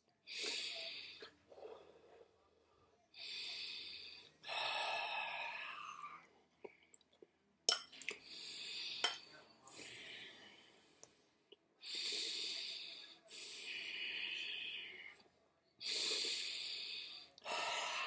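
A person breathing heavily and deliberately into a close microphone: about a dozen long, hissy breaths in and out with short pauses between them. A sharp click comes about eight seconds in and another about a second later, the first being the loudest sound.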